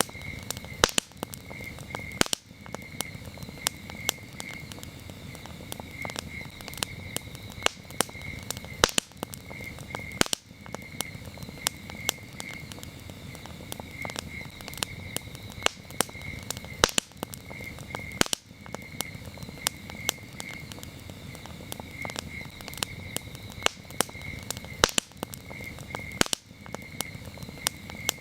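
Wood campfire crackling and popping with frequent sharp snaps over a low steady burn, while crickets chirp in a steady pulsing trill.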